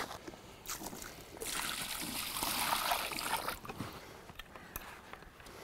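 Water splashing and streaming off a floating carp weigh sling with a big common carp in it as the sling is handled and lifted; the splashing is loudest for about two seconds starting a little over a second in, with a few light knocks around it.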